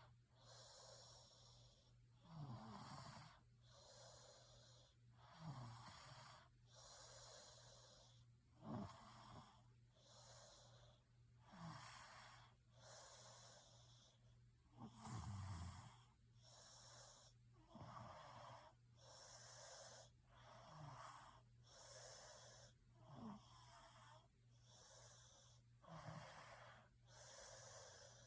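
Faint snoring of someone asleep: noisy, wheezy breaths about once a second, with a short low snort every three seconds or so, over a steady low hum.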